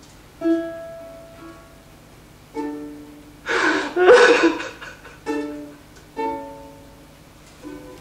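Sparse instrumental music: single pitched notes that start sharply and die away, a second or so apart, with two louder breathy, noisy bursts about three and a half and four seconds in.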